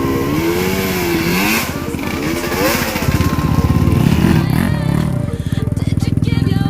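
ATV engine revving, its pitch rising and falling repeatedly as the throttle is worked, over a steady low rumble. Background music comes in near the end.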